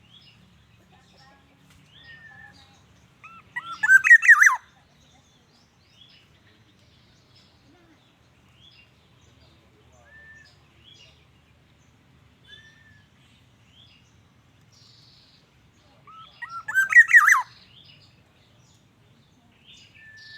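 Black-naped oriole calling: two loud, short bursts of several quick falling notes, one about four seconds in and another about thirteen seconds later, with faint chirps of other birds between.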